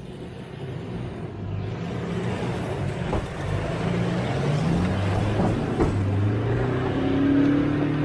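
A 4x4's engine working hard in four-low, second gear, revving up and down as it climbs a rocky off-road obstacle and growing louder. A few sharp knocks come through partway in.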